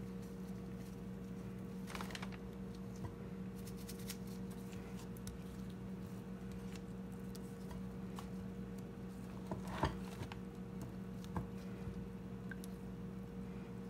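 Quiet food-prep handling: a gloved hand moving flour-coated shrimp through glass bowls of flour and beaten egg, making faint scattered taps and scratches, with a louder knock about ten seconds in. A steady low hum runs underneath.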